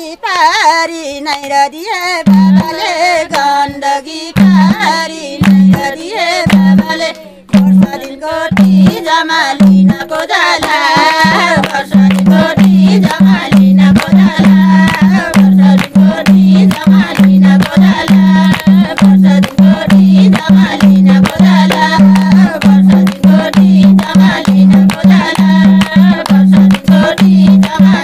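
Women singing a Nepali Teej folk song together, accompanied by a madal hand drum beating a steady rhythm that comes in about two seconds in, with hand claps.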